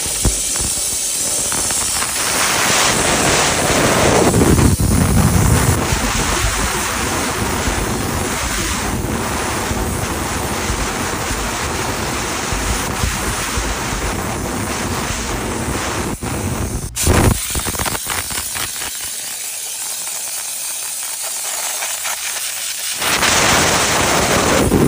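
Steam cleaner jet hissing steadily as it sprays, with a brief break about two-thirds of the way through.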